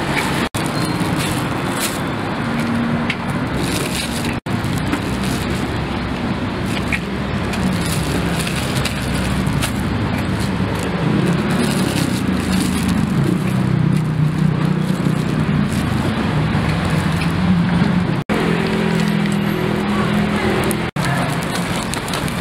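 Busy street ambience: a steady wash of traffic and indistinct voices, cut off for an instant four times.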